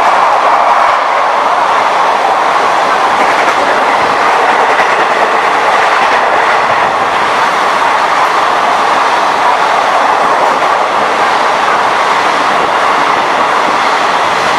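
Passenger express train coaches passing close by at high speed: a steady, loud running noise of the wheels on the rails.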